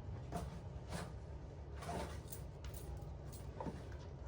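Faint handling noises: a few light rustles and knocks as packed items are picked up and moved, over a low steady hum.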